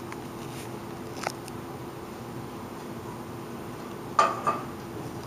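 Food containers handled on a tabletop: a light tick about a second in and a short clatter about four seconds in, over a steady hum of room tone.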